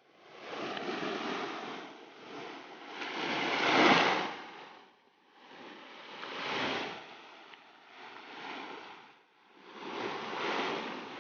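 Sea waves washing in and drawing back, in swelling surges a few seconds apart; the loudest comes about four seconds in.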